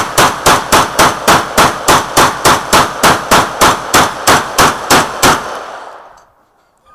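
Saiga-12 semi-automatic 12-gauge shotgun fired in rapid succession from a drum magazine: about twenty shots at roughly four a second, then the echo fades away over about a second.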